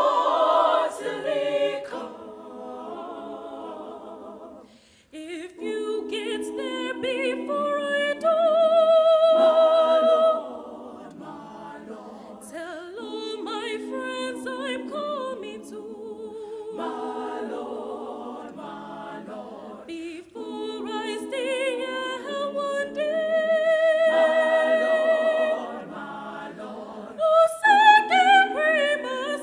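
Teenage women's choir singing gospel a cappella, with long held chords that swell and fade and a brief pause about five seconds in.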